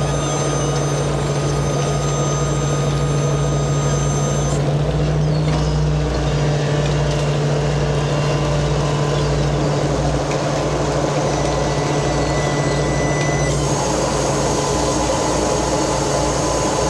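Steady drone of a purse seiner's diesel engines and deck machinery running during the net haul: a constant low hum over a pulsing deeper rumble.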